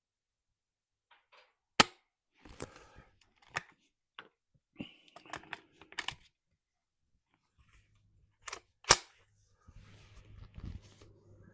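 Two shots from a custom Ruger 10/22 semi-automatic .22 rimfire rifle firing Lapua Super Long Range .22 LR: sharp cracks about two seconds in and again about seven seconds later. Smaller clicks and rattles fall between the shots.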